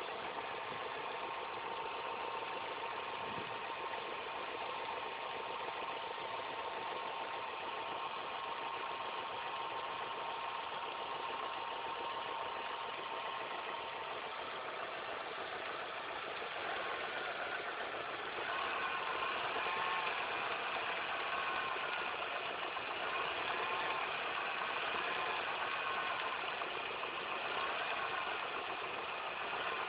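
Car engine idling with an annoying noise that appeared after the timing belt, the accessory belts and the tensioner were all replaced. About halfway through, a higher warbling whine joins the steady engine hum and gets a little louder.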